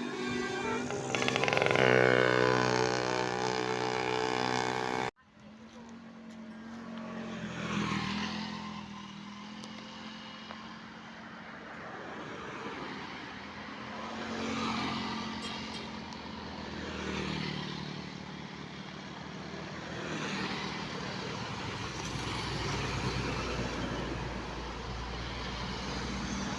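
A bus's telolet horn plays a loud multi-tone melody in the first five seconds, peaking about two seconds in, then cuts off abruptly. After that, road vehicles' engines go by, swelling and fading every few seconds.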